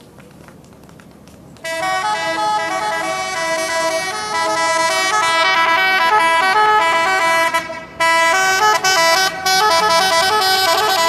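Bus 'telolet' musical air horn playing a tune of stepped notes. It starts loudly about a second and a half in and breaks off briefly about two-thirds of the way through before playing on.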